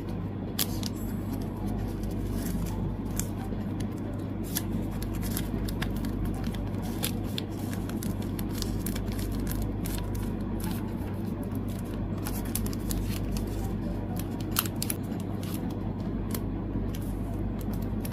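Photocards and clear plastic sleeves handled by hand: crinkly plastic rustling with many small, sharp clicks and taps as cards slide in and out of sleeves. A steady low hum runs underneath.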